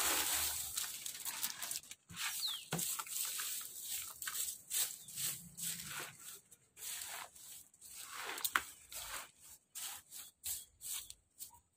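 A plastic bag rustling as torn cardboard pieces are tipped into a plastic bucket, then dry cardboard pieces crackling irregularly as a hand presses them down.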